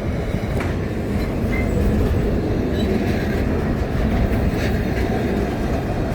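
Train running on the line: a steady low rumble of rolling wheels and wagons on the rails, with a few faint clicks.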